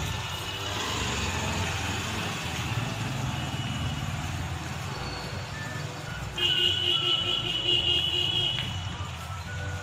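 Street traffic running steadily, with a vehicle horn held for about two seconds past the middle.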